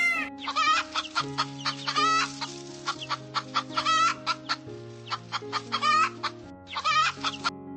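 Chickens clucking in rapid runs of short calls over background music; the clucking cuts off suddenly near the end.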